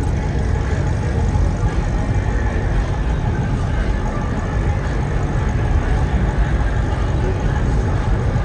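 Steady low rumble of vehicle engines idling at a drag-strip starting line.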